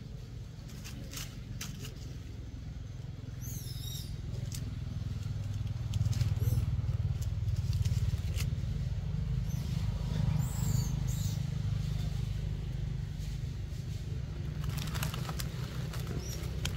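Low, steady engine rumble, like a motor vehicle running nearby, swelling a little about six seconds in. A few light clicks and brief high chirps sound over it.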